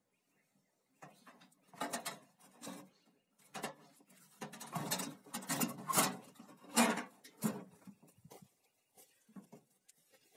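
Sheet-metal housing of an old chicken-house lamp being handled: a run of scrapes and clanks as its hinged metal lid is moved and shut, the loudest clanks between about five and seven and a half seconds in, then a few faint taps.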